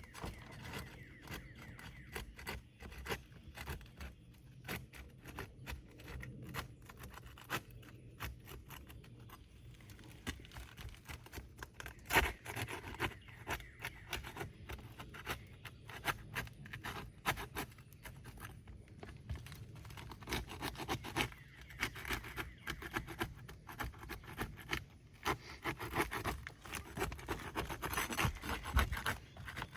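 Hand work on an asphalt roof shingle: repeated scraping, rubbing and small clicks as a wind-damaged shingle is worked on for repair, with one sharper knock about twelve seconds in.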